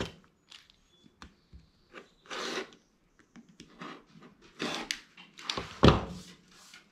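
Rotary cutter rolling through quilting cotton along the edge of an acrylic ruler on a cutting mat, in a few short cutting strokes, with the ruler and fabric shifted between them. A louder thump comes about six seconds in.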